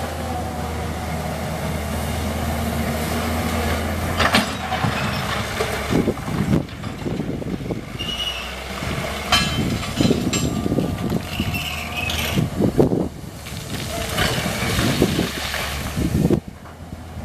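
Keihatsu KH921C 20-ton hydraulic excavator's diesel engine running steadily as the machine works, with gravel and rocks clattering and scraping under the bucket in irregular bursts from about four seconds in, and a couple of brief squeals.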